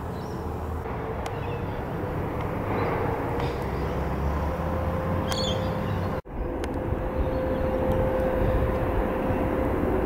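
Steady low outdoor rumble with a faint steady hum, slowly growing louder. A short high bird chirp comes about five seconds in, and the sound drops out for an instant a little past six seconds.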